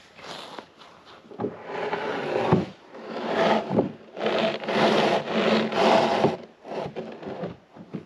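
Large wooden floor panels being shoved and slid into place on snow, scraping and rubbing against each other in about four long drags.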